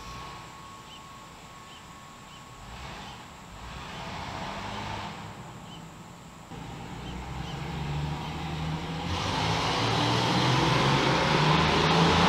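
Jeep with a 4.0-litre inline-six engine, noisy, growing steadily louder from about halfway in and loudest near the end. Faint, evenly spaced high chirps sound in the first few seconds.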